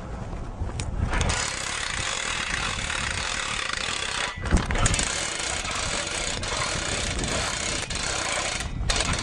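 A 3200 lb two-speed hand winch being cranked in high speed, reeling in its cable on a doubled line to lift a log. A steady mechanical clatter, with brief breaks about four seconds in and near the end.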